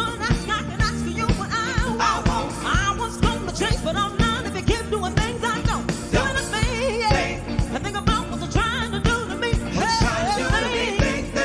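Live soul band playing up-tempo music with a steady drum beat, with wavering sung lines over it.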